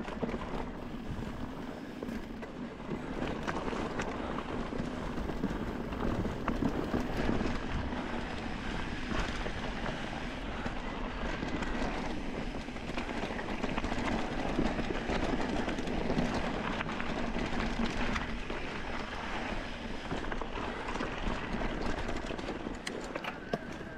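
Mountain bike rolling fast over a loose, rocky trail: tyres crunching on gravel and stones, with steady rattling and small knocks from the bike.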